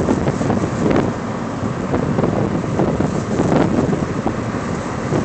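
Wind rushing in through the open windows of a moving car and buffeting the microphone: a loud, gusting rumble.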